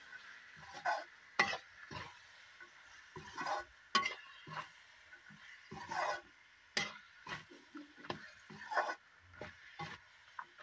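Metal spatula scraping and knocking against a metal kadhai as peas, tomatoes and onion are stirred, in irregular strokes about one or two a second, over a faint sizzle of frying.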